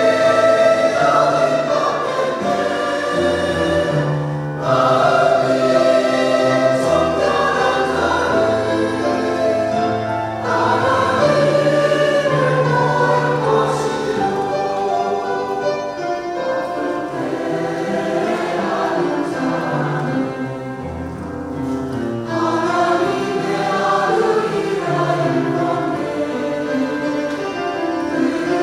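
Church choir singing a sacred anthem in several parts, in long flowing phrases over held low notes.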